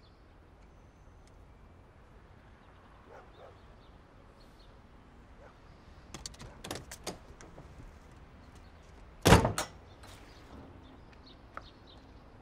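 Car door being opened with a few clicks and rustles, then shut from outside with a loud double thump about nine seconds in, heard from inside the car.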